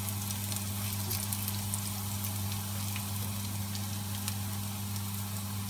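Chopped garlic sizzling in hot oil in a nonstick frying pan, with scattered small crackles as a spatula stirs it, over a steady low hum.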